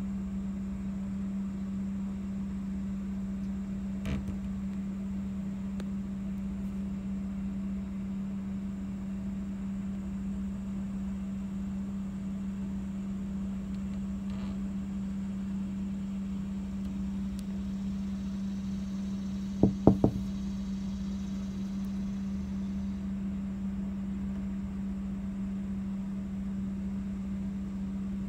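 A steady machine hum at one low pitch runs under a low rumble. About two-thirds of the way through come three sharp knocks in quick succession.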